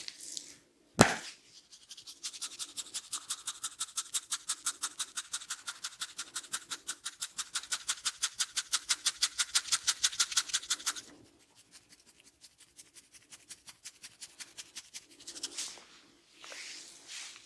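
Head massage: a single sharp crack about a second in, then hands working over hair and scalp in a fast, even rhythm of scratchy strokes, several a second, for about nine seconds, followed by quieter, sparser strokes.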